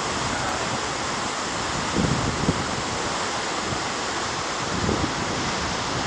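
Steady rushing noise of a 60 m waterfall, its water falling hard onto rocks and into the pool below. A few brief low bumps come about two seconds in and again near the end.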